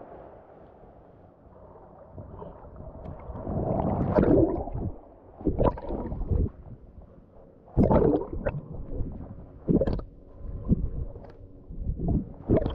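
Small waves washing over shallow water on a sandy bottom, heard from just under the surface: muffled gurgling and sloshing, soft at first, then a series of louder surges about every two seconds from about four seconds in.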